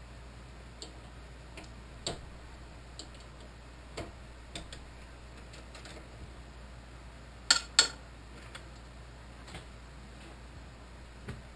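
Scattered light metallic clicks and taps from hands working at a benchtop drill press's chuck and quill, with two sharper clicks in quick succession about two-thirds of the way in.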